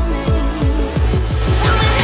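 Electronic dance music with a heavy beat and deep bass notes that drop in pitch several times a second; no vocals in this stretch.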